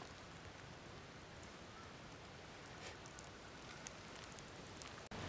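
Faint steady hiss with scattered small crackles from a charcoal fire burning under a wire grill.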